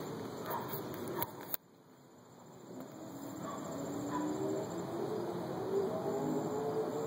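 A bird calling with short, low, cooing notes in the second half, over outdoor background noise. There are a few sharp clicks in the first second and a half.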